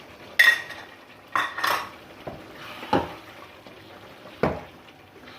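Metal spoon clinking and scraping against a bowl and the karahi while whipped yogurt is spooned into the masala: about five sharp clinks at uneven intervals.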